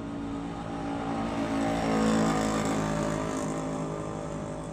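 A motor vehicle engine running. It swells to its loudest about two seconds in, then eases off.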